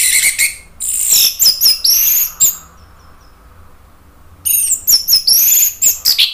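Orange-headed thrush singing loud, high, rapid phrases in two bouts, the second starting about four and a half seconds in.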